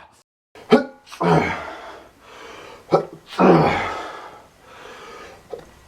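A man sneezing loudly twice, about two seconds apart, each sneeze bursting out suddenly and trailing off. The sneezes are set off by allergies.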